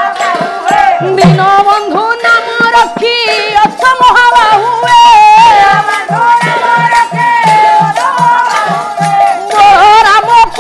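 Odia Pala devotional singing, a high sung melody over rattling percussion, with a drum beating steadily at about three strokes a second through the second half.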